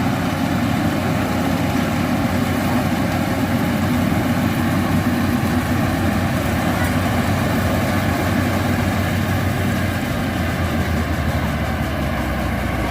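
Yanmar AW82V combine harvester's diesel engine and threshing machinery running steadily under load in the rice field, with a deeper low hum coming in about ten seconds in.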